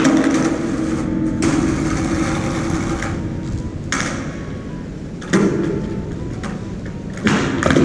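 Skateboard wheels rolling over rough concrete, with about five sharp clacks of the board's tail popping and the deck landing during pop shove-it attempts, all echoing off the concrete walls of an underpass.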